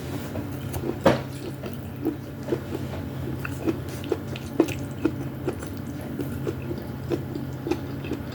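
Wet chewing and eating sounds of soup with meatballs: soft squishy mouth noises about twice a second, with one sharper click about a second in.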